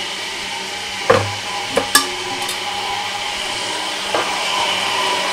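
Countertop blender running steadily, blending raw potatoes, onion and eggs into a smooth batter. A few short knocks sound over it, about one and two seconds in and again near four seconds.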